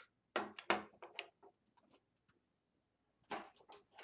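Plastic reacher grabber tool clicking as its trigger is squeezed and released and the jaws open and close. There is a quick cluster of clicks in the first second and a few more near the end.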